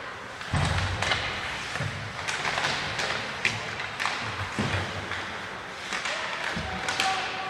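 Ice hockey play in an arena: irregular sharp clacks of sticks on the puck and ice, and dull thuds of the puck or players hitting the boards, over steady rink background noise.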